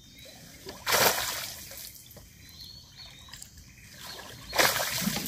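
Two loud splashes of water, one about a second in and one near the end.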